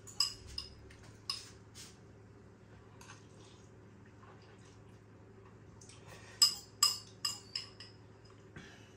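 Cutlery clinking against a ceramic bowl while eating: a few scattered ringing clinks in the first couple of seconds, then a quicker run of about five sharper clinks starting about six seconds in, the first the loudest.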